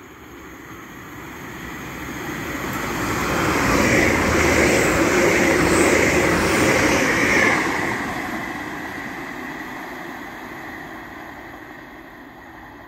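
Hull Trains Class 802 bi-mode train passing through a station at speed on its diesel engines. The rumble of wheels and engines swells to a peak about four to seven seconds in, then fades as the train draws away.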